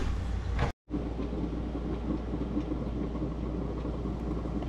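Steady low road rumble of a car driving. It cuts out briefly under a second in, then carries on evenly.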